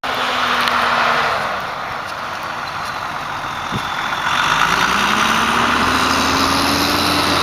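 An engine running under a steady hiss. Its pitch climbs steadily and it gets louder over the last few seconds, as it revs up or picks up speed.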